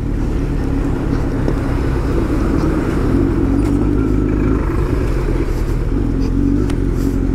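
Motorcycle engine running steadily at low road speed, heard from the rider's seat, with tyre and road noise from a rough, muddy surface.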